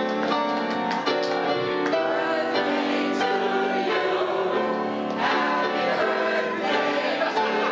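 Music: a choir singing held notes over sustained chords.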